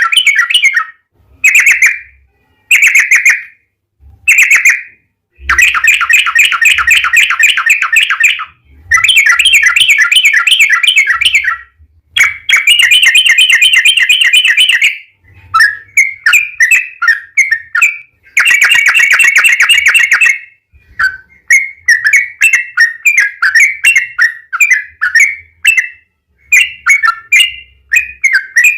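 Yellow-vented bulbul (trucuk) singing its rapid rolling 'ropel' song: loud runs of fast, bubbling repeated notes in phrases of one to three seconds with short gaps, breaking into shorter, choppier phrases in the second half.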